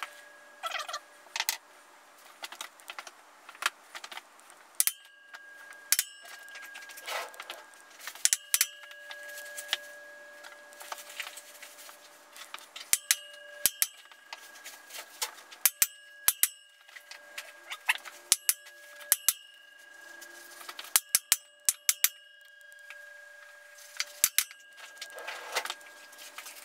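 Sharp metallic taps and knocks in uneven clusters, some ringing briefly. They come from a steel smokebox being tapped round on the front of a kit-built Burrell SCC traction engine boiler to line up its rivet holes.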